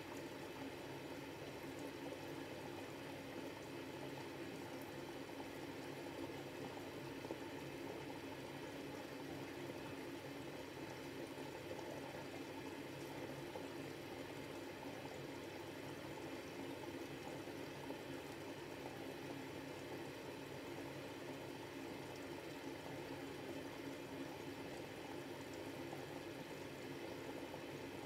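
Miele Novotronic W715 front-load washing machine taking in water for a rinse: a steady, unchanging rush of water flowing into the drum.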